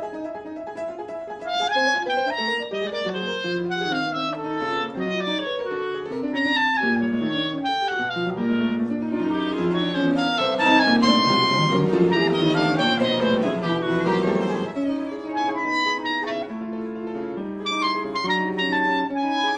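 A live chamber ensemble of piano, violin, cello and clarinet playing a classical piece, several lines moving at once, growing fuller and louder about halfway through before thinning out again.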